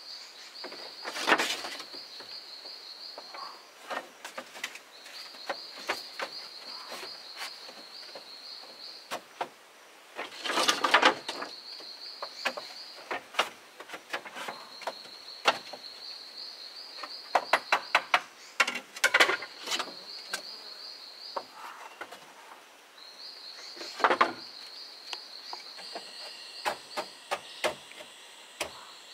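Bamboo poles knocking and clattering as slats are handled and fitted into a bamboo wall, with several sharp clusters of knocks. Behind it an insect trills high in repeated stretches of a few seconds each.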